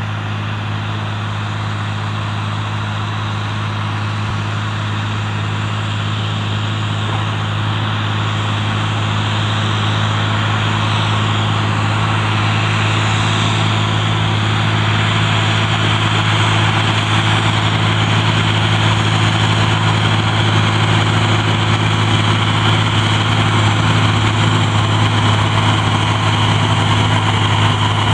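Versatile 435 four-wheel-drive tractor's Cummins diesel engine running steadily under load, pulling a soil finisher through tilled ground, a deep even drone that grows gradually louder as the tractor comes closer.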